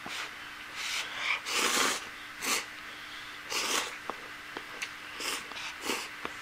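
A person slurping instant soba noodles from a Donbei cup: a run of short, noisy slurps, the longest and loudest about one and a half seconds in, with small clicks between them.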